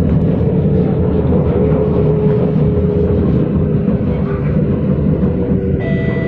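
Cabin noise of an SMRT C751B train running at speed: a steady low rumble of wheels on rail with a faint, wavering motor whine. Near the end, a new set of steady high tones sets in.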